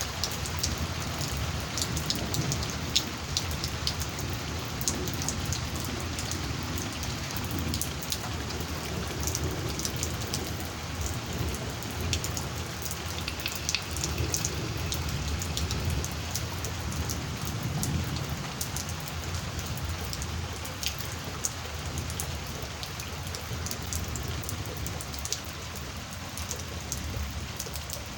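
Heavy rain in a thunderstorm, a steady hiss with many drops ticking on a nearby surface. A low rumble swells and fades several times underneath.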